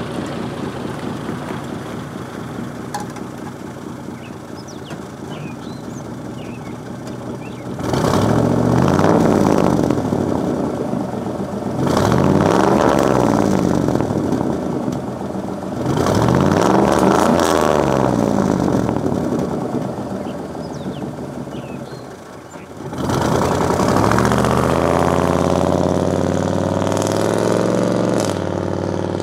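Pickup truck's 6.0 Vortec V8 driving past the camera several times: a steadier engine sound at first, then four loud passes, each swelling up and fading away.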